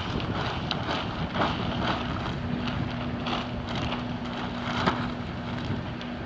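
Wind buffeting the microphone, with the irregular crackle of greenhouse polyethylene film flapping and rustling in gusts. A faint steady hum joins about two seconds in.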